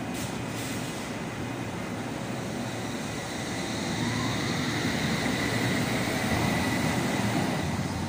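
Metropolitan line S8 Stock Tube train pulling out of the platform. After a couple of brief clicks at the start, the traction motors whine and rise in pitch, and the running noise grows louder from about four seconds in as the train gathers speed.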